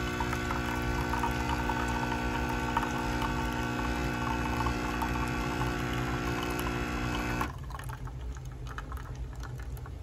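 B Coffee Co. coffee machine brewing, its pump humming steadily as coffee streams into a stainless steel mug. About seven and a half seconds in the pump cuts off suddenly, leaving only the last drips falling into the mug.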